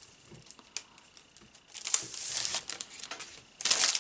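Crinkling and rustling of a packet of chipboard stickers being handled. It is quiet at first, with one light tap, then bursts of crinkling start about two seconds in, and the loudest comes near the end.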